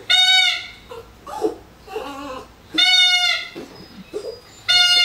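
Rubber squeaky dog toy squeezed three times, each squeak short and held at one steady pitch, with softer sounds between the squeaks.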